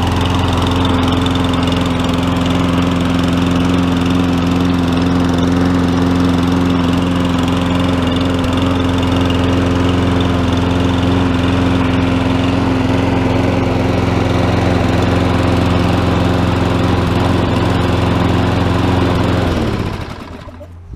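Lawn-Boy 10642C mower's Briggs & Stratton 6.75 Quantum single-cylinder four-stroke engine running steadily, then shut off a second before the end and winding down to a stop.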